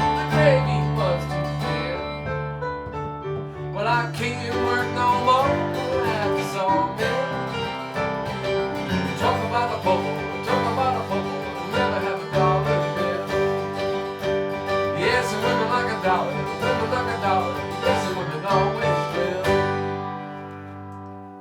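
A country band playing the closing bars of a song, guitars over a steady bass line, with the music dying away near the end.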